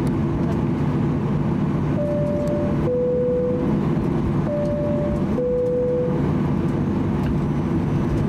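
Boeing 737-800 cabin noise while taxiing: a steady engine and airframe rumble. Over it, the cabin chime sounds a high-low two-tone twice, about two seconds in and again about four and a half seconds in.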